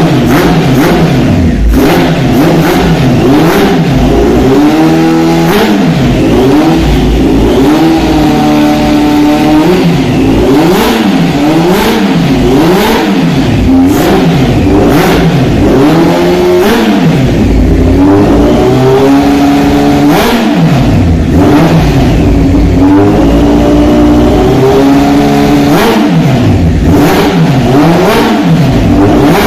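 Honda CBR four-cylinder motorcycle engine running with its airbox off and carburettor intakes open, blipped repeatedly so the revs keep rising and falling every second or two, with occasional sharp pops or clicks.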